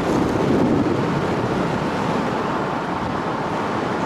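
Steady rush of wind buffeting the microphone at the open window of a moving car, mixed with road noise.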